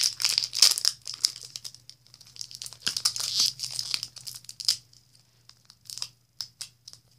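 Foil booster-pack wrapper crinkling and tearing as a Pokémon card pack is opened, in dense bursts during the first second and again around three to four seconds in, with scattered short crackles after. A faint steady low hum runs underneath.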